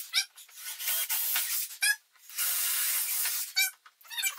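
Cordless drill boring a hole with a larger bit through the lid of a Givi Trekker top case, a high grinding hiss in three runs. The drill's whine rises and falls as the trigger is squeezed and let off between them.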